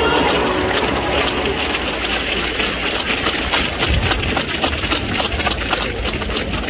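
Football stadium crowd noise with many hands clapping and a steady low rumble.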